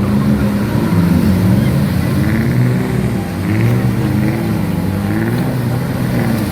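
Off-road 4x4 engine running loud, revved up and down several times in quick swells over a steady low drone.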